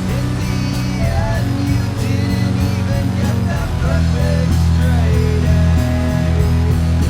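Home-recorded rock music on a Fostex X-77 cassette multitrack: guitars over sustained low bass notes, with a higher guitar line bending up and down. No words are sung.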